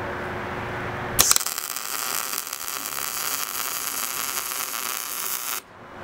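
Arc welding a corner joint of 1-inch square steel tubing: the arc strikes about a second in with a sharp crack, crackles steadily for about four seconds, then cuts off suddenly.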